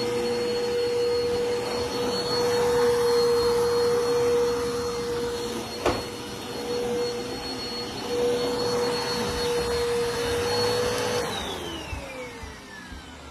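Dirt Devil Vigor Cyclonic Pet vacuum cleaner running with a steady whine, with one sharp click near the middle. Near the end the motor's whine falls in pitch and fades as it winds down.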